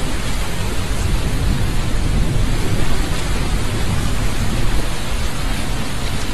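Steady, dense hiss with a deep rumble underneath, keeping an even level throughout: a noise-drone soundtrack that resembles heavy rain with thunder.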